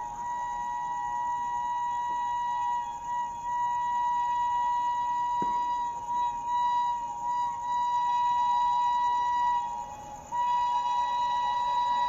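Locomotive horn of an approaching express train sounded in one long, continuous blast, a steady single-pitched tone. It breaks off briefly about ten seconds in and starts again at once.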